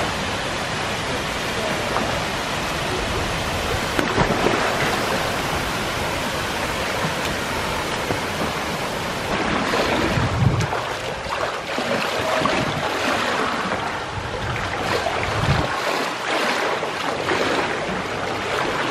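Steady rush and splashing of water in an outdoor swimming pool, with a swimmer's front-crawl strokes and kicks splashing through it and a few heavier surges of water in the second half.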